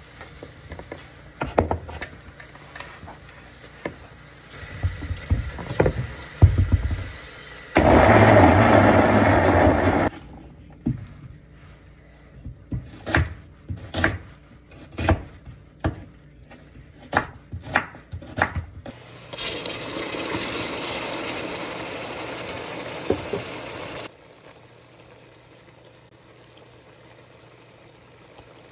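Kitchen knife chopping a red onion on a wooden cutting board, about a dozen separate strokes at one to two a second. Before it comes a short loud rushing noise, and after it a steady hiss that lasts about five seconds and stops suddenly.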